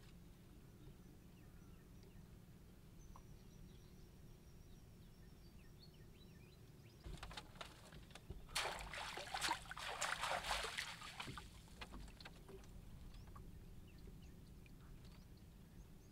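Water splashing and sloshing as a bundle of dry grass is dipped and swished in the water, starting about seven seconds in and lasting around four seconds, over a faint low background rumble.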